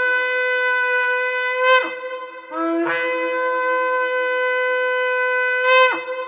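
Shofar blowing long, steady blasts. The first ends with an upward flick about two seconds in; after a short break a second blast starts on a lower note, jumps up to its held main note, and near the end finishes with a quick rise and sharp drop, its sound ringing on briefly.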